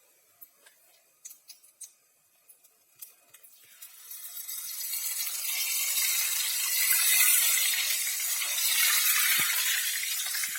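A few light clicks and taps, then about four seconds in a loud sizzling hiss builds and holds: strands of gram-flour dough pressed into hot oil and deep-frying as omapodi (sev).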